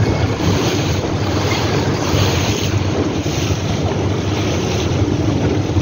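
A motorboat running across choppy water: wind on the microphone and rushing water over the steady low drone of the boat's engine.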